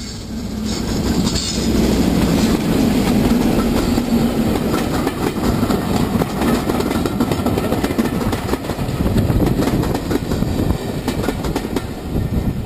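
Class 56 diesel locomotive passing close by under power, its engine drone loudest over the first few seconds. It is followed by a long run of passenger coaches, their wheels clicking rhythmically over the rail joints.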